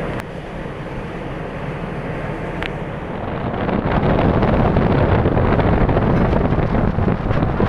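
Wind buffeting the microphone on a ship's open deck, a rough, uneven rush that gets louder about three and a half seconds in.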